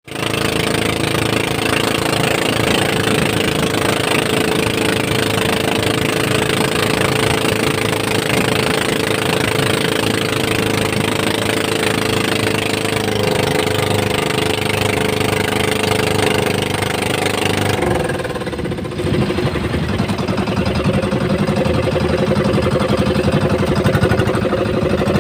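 Outrigger boat's engine running steadily under way, over a broad hiss of wind and water. About 18 seconds in, the hiss drops away and the engine note changes.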